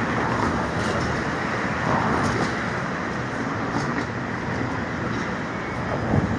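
Steady street traffic noise: a continuous rumble and hiss of passing vehicles with no single event standing out.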